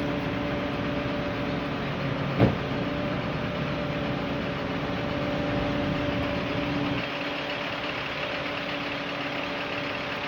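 Vehicle engine running steadily, with a single sharp knock about two and a half seconds in; the engine's deeper hum drops away about seven seconds in.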